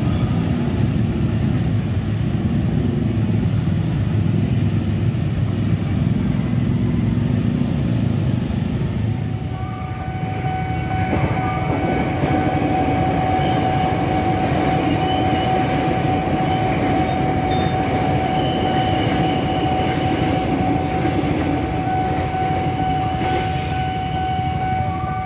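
Electric KRL commuter trains passing close by at a level crossing, with a heavy, continuous rumble of wheels and running gear. About ten seconds in the sound changes abruptly to another pass, in which a steady high tone holds over the rumble.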